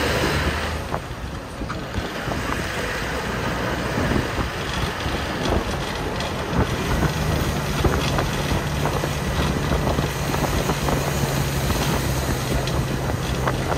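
A vehicle running steadily with wind noise on the microphone. A low engine hum comes through more clearly from about seven seconds in, with scattered small rattles.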